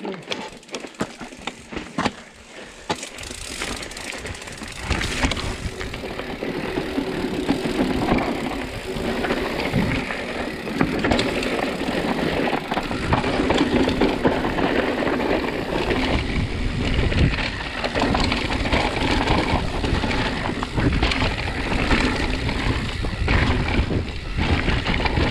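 Mountain bike descending a rocky, gravelly trail: tyres crunching over stones and the bike rattling over bumps, with wind rumbling on the camera microphone. It starts with a few sparse clicks and turns to a loud, rough, continuous noise about three seconds in as speed picks up.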